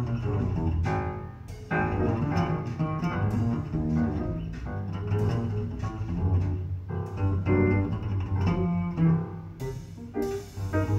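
Recorded acoustic music with a prominent double bass among other strings, played back through a home hi-fi stereo system with Audio Research amplification and picked up from the speakers in the listening room.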